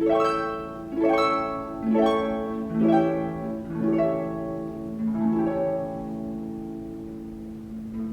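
Orchestral classical music led by a harp plucking chords about once a second, each ringing and fading over a steady held low note, settling into a quieter sustained passage near the end.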